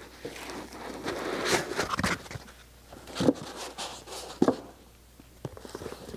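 Cardboard boxes being handled and set down on a table: a rustling scrape in the first couple of seconds, then several short knocks.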